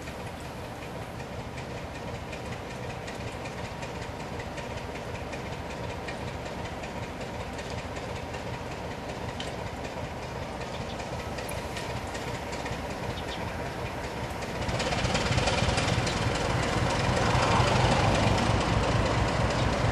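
Sulzer diesel engine of a BR Class 24 locomotive running steadily with a low hum, then suddenly louder about fifteen seconds in as the engine is opened up.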